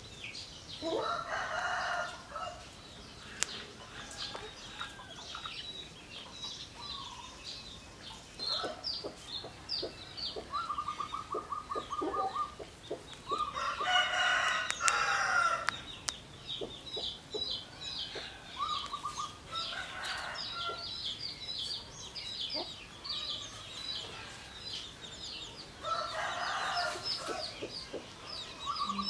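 Roosters crowing about four times, the loudest about halfway through, over steady chirping of small birds, with a few short trills between the crows.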